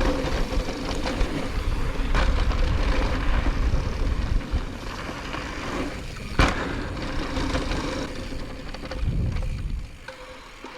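Mountain bike rolling fast down a dirt trail: wind rumbling on the helmet-mounted microphone over tyre noise and the bike's rattling, with a sharp knock about six and a half seconds in. It grows quieter near the end as the bike slows.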